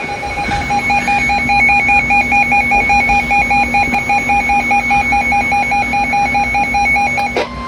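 Weather alert radio's built-in alarm sounding as a warning comes in: rapid electronic beeping with a warbling higher tone. It cuts off near the end, and a short steady tone from the broadcast follows, the tail of the 1050 Hz warning alarm tone.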